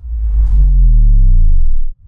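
Loud, deep synthesized bass boom in an animated logo intro, with a pitched tone sliding downward; it cuts off abruptly just before the end.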